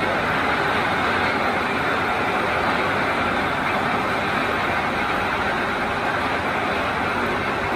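Manual engine lathe running with a steady, unchanging machine noise while its carriage is fed by hand.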